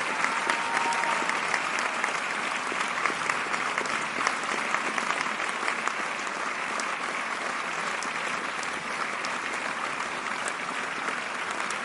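Crowd applause: many hands clapping in a dense, steady patter that holds at an even level.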